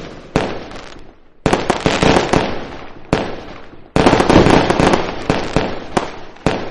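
Diwali firecrackers going off: single sharp bangs and long runs of rapid crackling pops, densest and loudest about four seconds in.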